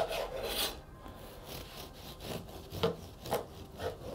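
Bread knife sawing through a rye-wheat sourdough loaf with a fairly soft crust, in a series of short strokes, about two a second in the second half.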